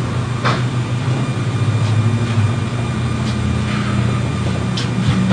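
A steady low machine hum with a few faint clicks over it.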